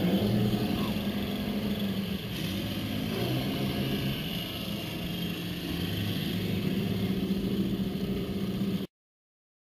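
A boat engine runs steadily, its pitch shifting a little, over water rushing past the hull and wind on the microphone. It cuts off suddenly near the end.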